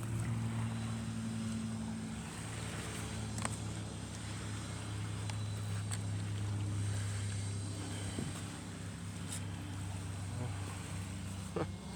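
Steady low drone of a motor, humming evenly with a few faint clicks over it.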